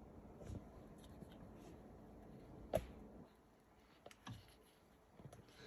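Faint handling of coffee grinder parts: a few scattered light clicks and knocks, with one sharper click a little under three seconds in.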